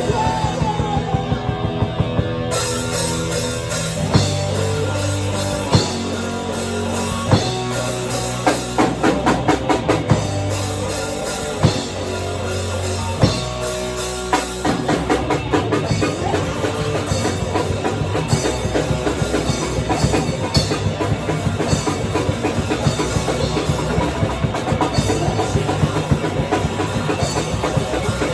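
Band playing loud rock music on drum kit and guitar. For the first half the drums land on separate, spaced hits, then from about halfway they break into a fast, dense beat.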